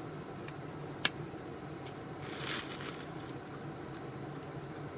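Makeup packaging handled by hand: one sharp click about a second in and a brief rustle around two and a half seconds, over a steady low room hum.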